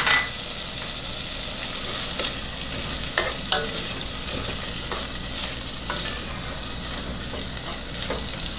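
A spoon stirring chicken pot-pie filling in a nonstick pot over a gas burner, scraping and tapping against the pot every second or so, over a steady hiss from the hot pot.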